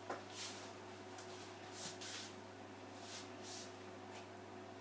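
Soft, short swishes of hands and sleeves moving while signing, about six in all, with a small click near the start, over a steady low electrical hum.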